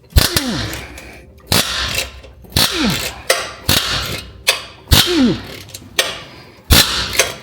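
Wrench working a seized, rust-crusted exhaust bolt loose: a sharp clack about once a second, several followed by a short creak falling in pitch as the bolt turns in its threads.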